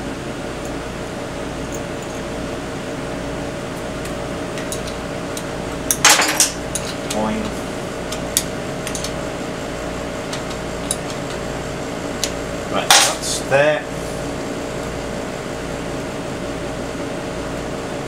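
Metal clinks and clatter of a T-handle hex key and bolts against a motorcycle's front brake plate as the brake anchor bracket is tightened up. They come in two short clusters, about six and about thirteen seconds in, over a steady workshop hum.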